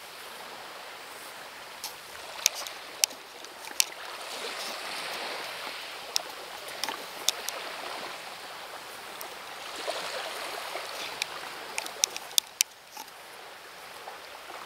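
Small waves washing onto a pebble shore, the wash swelling and ebbing, with scattered sharp clicks throughout.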